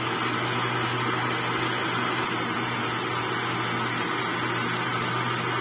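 Electric countertop blender running steadily, its motor holding one even pitch with a low hum, as it blends mango puree and milk into a shake.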